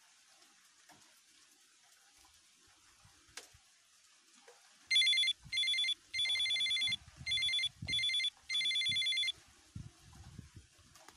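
Mobile phone ringtone: a bright electronic pattern of two short bursts and a longer one, played twice, starting about five seconds in and lasting about four seconds.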